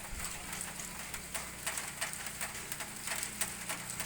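Rain falling, with irregular sharp drips and splashes landing close by. A low steady hum runs underneath.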